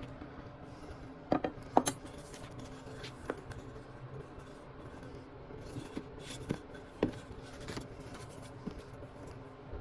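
Scattered light clicks and clinks of small metal and hard objects being handled, irregular and a few seconds apart, loudest in a cluster between one and two seconds in, over a steady low hum.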